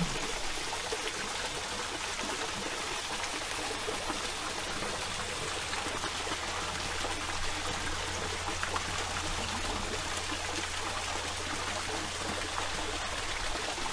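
Steady, even rushing noise like running water, with a low hum underneath.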